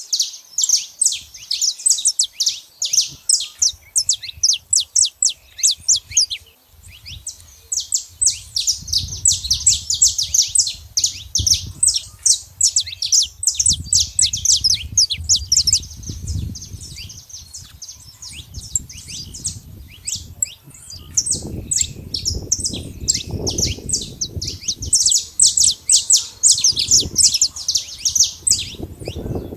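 Saffron finch singing: long runs of rapid, sharp, high chips and trills, broken by a couple of brief pauses. A low, uneven rumble sits underneath in the second half.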